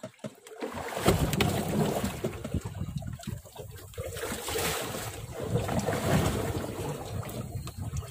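Wind buffeting the microphone over choppy sea water slapping against a small wooden boat's hull, an uneven rushing noise that comes in after a brief gap at the start.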